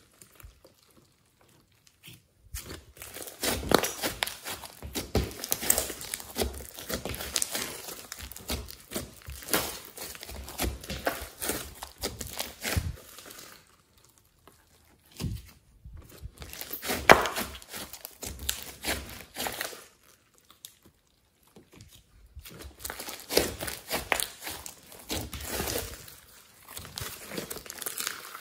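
Glossy slime mixed with clay and foam beads being stretched and squeezed by hand, giving runs of wet crackling and popping clicks in bursts with a few short pauses, and one sharper pop about two-thirds of the way through.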